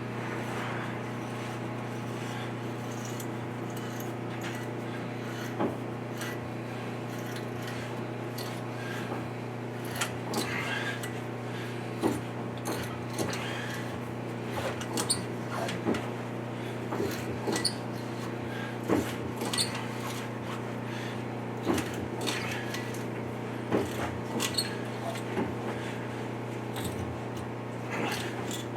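Irregular metal clicks and clanks of the cylinder-liner puller and tools being worked, sparse at first and coming every second or so from about ten seconds in, over a steady low hum.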